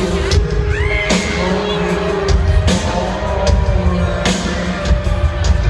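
Loud pop music played over an arena sound system, with heavy bass and repeated percussive hits, heard from among the audience. A short swooping high tone comes about a second in.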